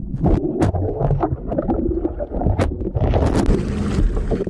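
Water splashing and sloshing around a camera being lifted out of the lake after a kayak capsize, with irregular knocks and clatter. About three seconds in the muffled sound opens up into wind on the microphone and lapping water.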